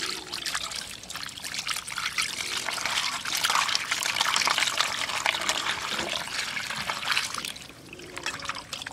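Water sloshing and splashing in a steel bowl as hands rub and swish small puti fish to wash them, a busy run of little splashes that thins out near the end.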